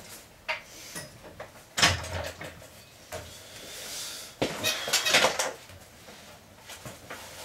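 Barbell and iron weight plates clanking on a bench-press rack as they are handled: a loud metal clank with a thud about two seconds in, then a run of clinks and knocks between about four and a half and five and a half seconds.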